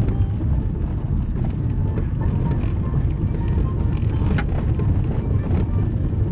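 Steady low rumble of a car's tyres and engine on a gravel road, heard inside the cabin, with a car radio playing music faintly.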